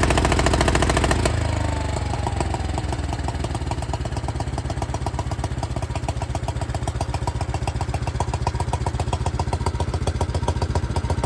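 1972 John Deere 110 garden tractor engine running fast, then about a second in throttling down to a steady, evenly pulsing idle, with a faint falling whine as it slows. The owner believes the engine has a blown head gasket.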